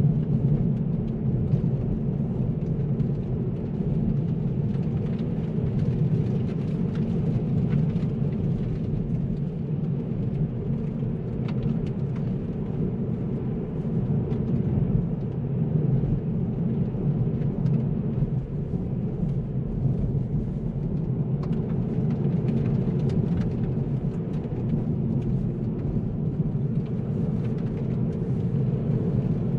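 Kia Ceed SW's 1.5 T-GDI turbocharged petrol engine and tyres on an icy road making a steady low rumble of road noise during casual driving, with a few faint ticks.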